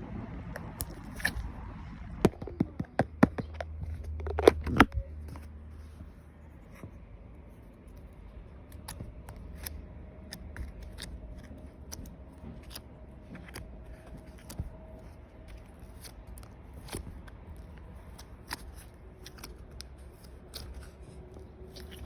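Slime being handled for ASMR: a run of sharp, loud clicks and pops about two to five seconds in, then softer scattered clicks.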